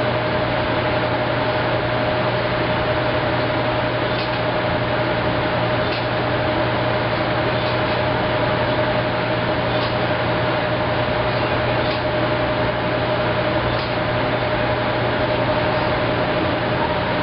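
Maytag SoftMount commercial washer running mid-cycle: a steady machine hum with a constant mid-pitched tone, and faint light knocks every couple of seconds.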